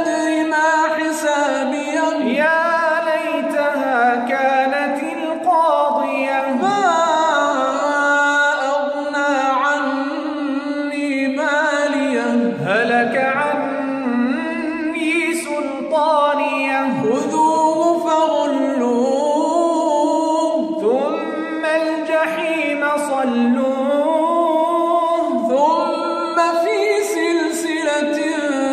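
Quran recitation in melodic tajweed style: an unaccompanied voice chanting Arabic verses with long held notes and ornamented rising and falling glides.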